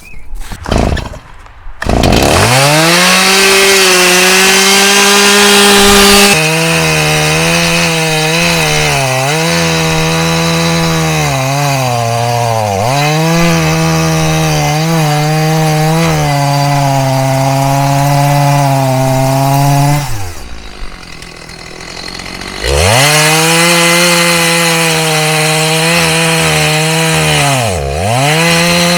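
Chainsaw running at full throttle, its pitch dropping and dipping repeatedly as it cuts wood under load. About two-thirds through it falls back to idle for a couple of seconds, then is revved up again.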